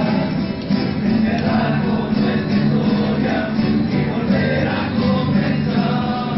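Rondalla music: a group of acoustic guitars strumming and plucking, with the group's voices singing together.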